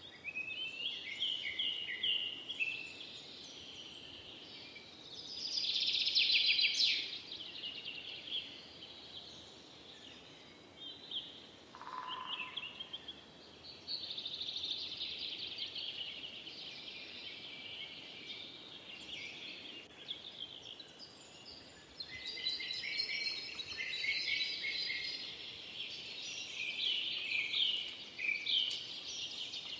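Several forest songbirds singing at once, with overlapping chirps and trills, and one lower call about twelve seconds in.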